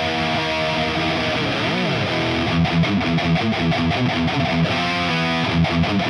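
1987 Charvel Model 6 electric guitar played through a modded 1978 Marshall Super Bass head and a Marshall 4x12 cab with Celestion G12K-100 speakers. Held notes come first, with one note bent up and back down about two seconds in, then rapid picked notes.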